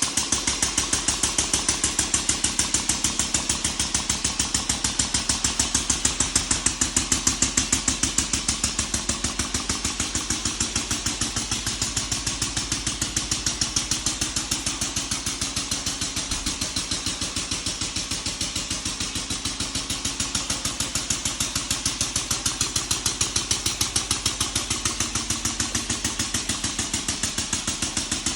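Audi engine idling, a steady rapid pulsing that runs evenly and swells and fades slightly in loudness.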